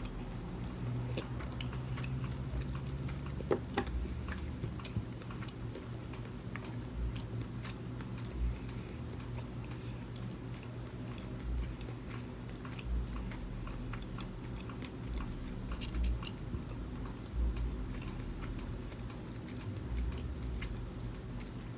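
Close-up chewing and mouth sounds of someone eating sushi, with scattered small clicks and soft low thumps over a steady low hum.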